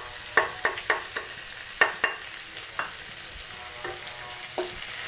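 Chopped onions and cumin frying in hot mustard oil in a non-stick wok, a steady sizzle. A wooden spatula stirring them knocks sharply against the pan about six times in the first three seconds.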